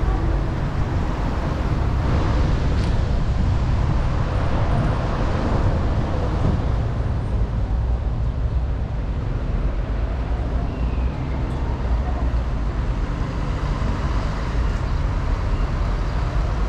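Car driving slowly along a wet city street: a steady low rumble of engine and road, with tyre noise on the wet asphalt.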